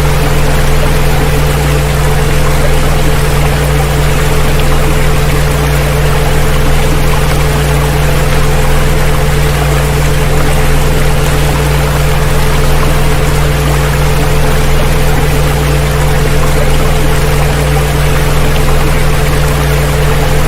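Sound-healing frequency track: several steady pure tones, some deep and some mid-pitched, held unchanging over a continuous rush of recorded water.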